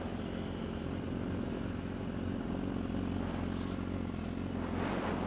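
2019 BMW S1000RR's inline-four engine running steadily at low revs, with a brief swell in sound near the end.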